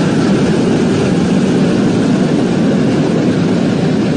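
Steady heavy rumble of a train rolling across a steel truss bridge, with no let-up or change.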